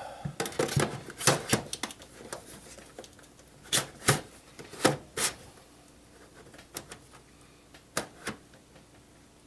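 Irregular sharp clicks and knocks of computer hardware being handled and fitted in a desktop PC case: a quick run of clicks at first, a few louder knocks in the middle, then sparser ones.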